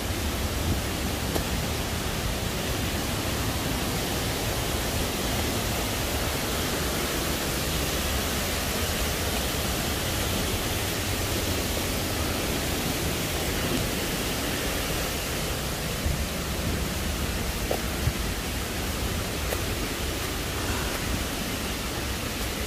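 Steady rushing of a rocky jungle stream: an even, unbroken hiss of running water.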